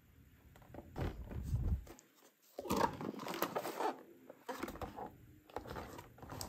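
Cardboard toy box with a clear plastic window being handled and turned over: crinkling and scraping of the packaging with light knocks. The loudest crinkling comes in the middle.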